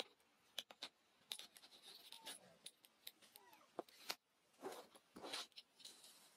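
Near silence: faint outdoor ambience with scattered short clicks and scratchy rustles.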